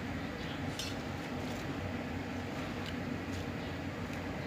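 Pot of noodle soup with taro and cabbage heating on the stove toward the boil: a steady low hiss and hum with a few faint ticks.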